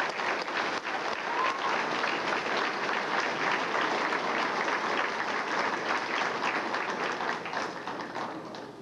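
Audience applauding, a dense steady clapping of many hands that fades near the end and then cuts off.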